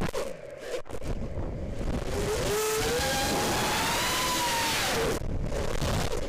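FPV quadcopter's brushless motors whining, the pitch rising and falling as the throttle changes, with wind rushing over the onboard microphone. The motor sound drops out briefly near the start and again about five seconds in.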